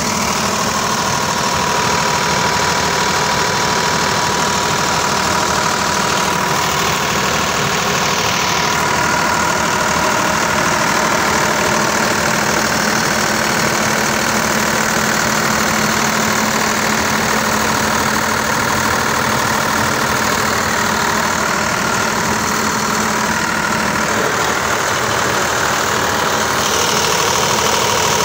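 25 kVA Kirloskar Koel Green diesel generator set running at a steady speed, with an even, unchanging engine drone.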